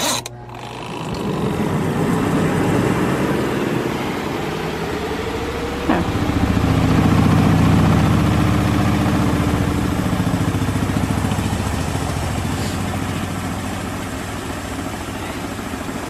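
Portable twin-tub washing machine running its spin cycle with the water drained out: the motor spins up over the first couple of seconds, then, after a click about six seconds in, the run turns into a louder, heavier rumble. Too light without water, the machine moves around under the spin instead of running steadily.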